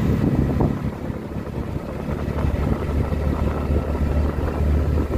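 Auto-rickshaw engine running steadily as the rickshaw drives along, heard from inside the open cab as a low drone, with wind noise on the microphone.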